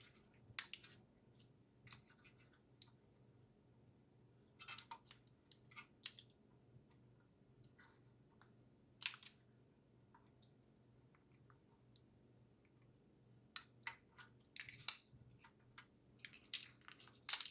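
Faint, irregular small clicks and short crinkles from hands handling an M.2 NVMe SSD and peeling and pressing on its thermal pad, with a few denser crackly patches about five, nine and fifteen seconds in.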